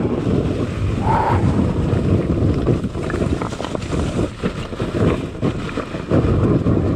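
Two-stroke enduro motorcycle engine running at low revs, rough and muffled under wind buffeting on the microphone, with scattered knocks.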